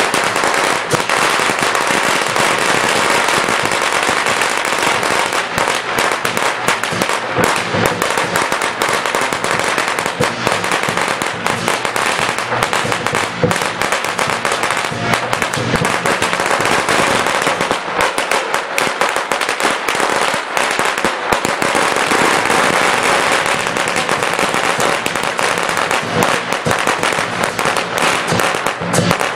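A long string of Chinese firecrackers going off in a rapid, unbroken crackle of bangs.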